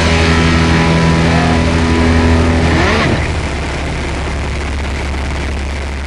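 Steady drone of a T-28 Trojan's radial engine and propeller heard from inside the cockpit in flight, with wind rush. The steady tone gives way to a rushing noise about halfway through and begins to fade near the end.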